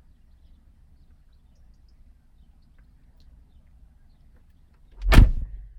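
A car door shutting: a single heavy thump about five seconds in, after several seconds of faint low rumble.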